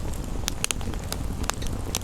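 Wood fire crackling, with about four sharp pops from the burning logs over a steady low rumble and hiss of rain.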